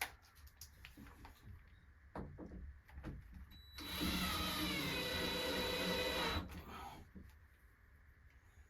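Cordless drill/driver running for about two and a half seconds, driving a screw to fasten the door latch plate, after a few light clicks of handling.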